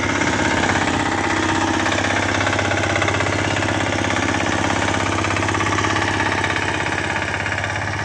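Walk-behind power tiller's small single-cylinder engine running steadily under load, its rotary tines churning the soil.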